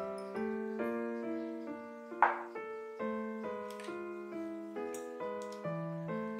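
Soft background piano music, a steady run of notes, with a brief sharp noise about two seconds in that is the loudest moment.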